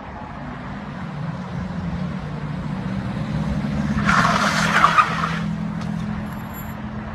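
Car engine running steadily, with a burst of tyre skid on tarmac about four seconds in that lasts about a second and a half.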